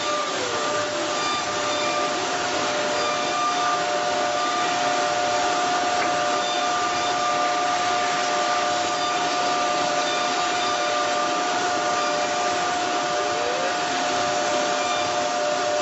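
CNC router running: a steady machine whine with several held tones over a rushing hiss, with a faint falling sweep about a second in and a rising one near the end.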